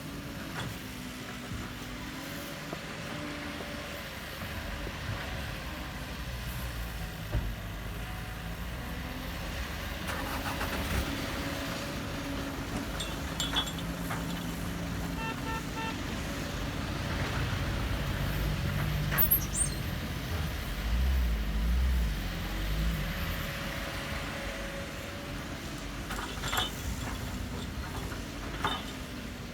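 A vehicle or machine engine running steadily, its pitch wavering slightly, with a few sharp knocks and a brief run of evenly spaced beeps about halfway through.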